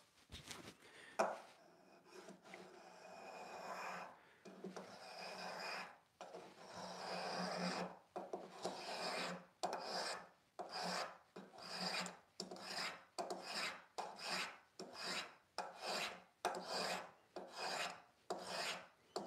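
Veritas flat-bottom spokeshave shaving a wooden bench leg on a very light cut, a dry scraping swish with each pass. A few long, slow strokes at first, then quicker short strokes at about one and a half to two a second.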